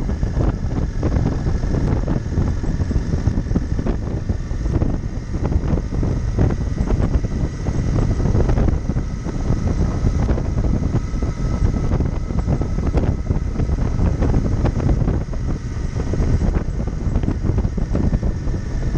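Royal Enfield Interceptor 650 parallel-twin running at a steady cruise, heard under heavy wind noise on the microphone.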